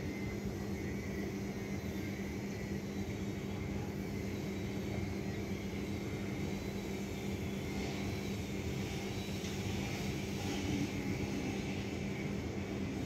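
Steady city ambience: a distant traffic rumble under a low steady hum, with a faint high whine that wavers in pitch.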